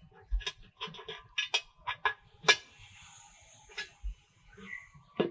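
Irregular light clicks and taps from a shaped bread cutter being pressed into slices of bread and the cut pieces handled, a few of them sharper than the rest.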